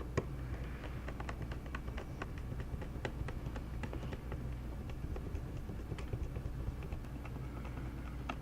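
Light, irregular clicks and taps of small laptop parts being handled and fitted during reassembly, a few every second, over a steady low hum.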